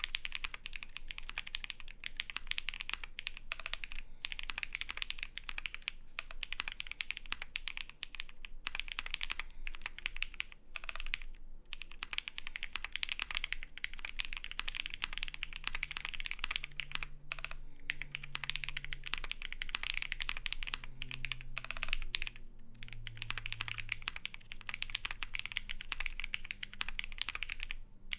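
Continuous typing on a custom Vega mechanical keyboard with lubed Holy Panda tactile switches, a polycarbonate plate, foam dampening and GMK keycaps: a dense run of keystroke clacks with a few brief pauses.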